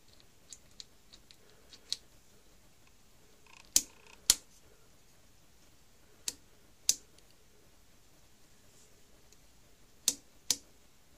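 Sharp mechanical clicks from the front-panel controls of a Robot Model 400 SSTV scan converter, mainly its Transmit Select rotary switch being turned through its positions. A few faint ticks come first, then loud clicks in pairs about half a second apart, three times.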